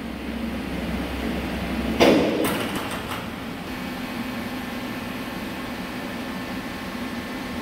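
A cast-iron turbo compressor housing, held on a magnetic lifter, is set down onto a vertical lathe's chuck table, giving one sharp metallic clank about two seconds in, with a short ringing tail. A low hum stops at that moment, and a steady machine hum runs underneath.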